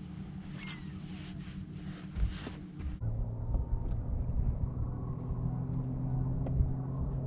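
Steady low hum of a boat motor, with scattered small clicks of fishing tackle. About three seconds in the hum shifts abruptly to a louder, deeper tone.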